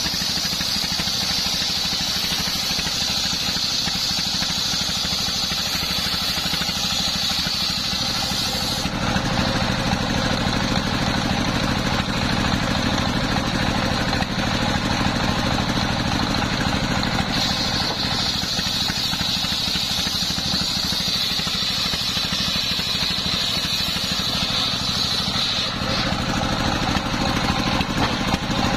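Stationary horizontal single-cylinder engine running steadily, driving a circular sawmill blade. The blade cuts through coconut-palm wood twice with a high singing note: once through the first nine seconds or so, and again for about nine seconds starting a little past the middle.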